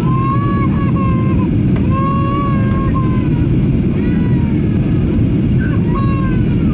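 Steady roar of an airliner cabin on descent, with a baby crying over it in four drawn-out wails about two seconds apart.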